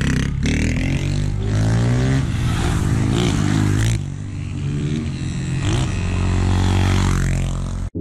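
Motorcycle engine revving and accelerating, its pitch rising and falling repeatedly, with rattling and scraping over it. It cuts off suddenly just before the end.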